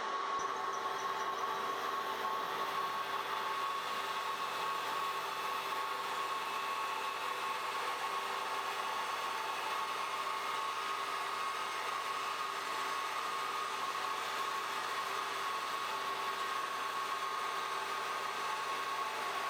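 A workshop machine running steadily with an even whir and hiss, and a constant high hum that never rises or falls.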